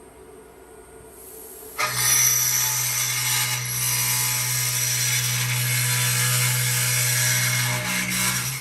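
CNC machining centre cutting an aluminium profile: the machine starts up about two seconds in and runs steadily with a low hum under a dense high hiss of cutting, stopping near the end.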